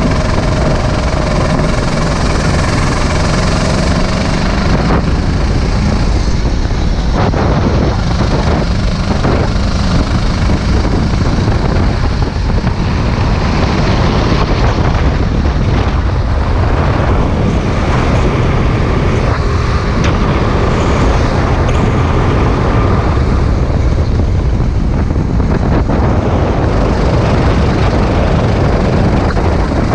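Sodi RT8 racing kart's engine running at speed on a lap, heard from the kart itself and largely buried under heavy wind buffeting on the microphone; the faint engine note shifts in pitch through the corners.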